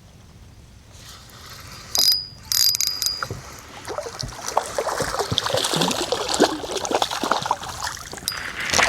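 Spinning reel being cranked while retrieving a jig, a run of mechanical clicks and rattles over a hiss that starts about a second in, with a sharp high-pitched sound near two seconds in.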